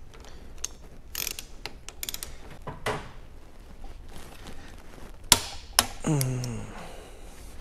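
Socket ratchet or torque wrench clicking in short strokes as a connecting-rod bolt is run down to 40 ft-lb, with two sharper, louder clicks a little after five seconds.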